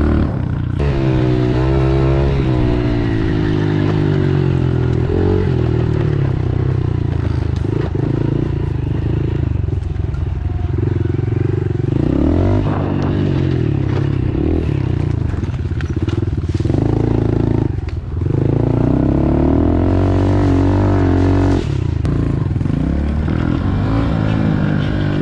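Small four-stroke pit bike engine being ridden, its pitch rising and falling again and again as the throttle is opened and closed, with a brief drop about 18 seconds in.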